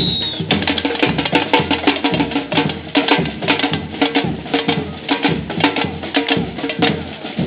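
Percussion-heavy music with a fast, busy beat over a low bass line.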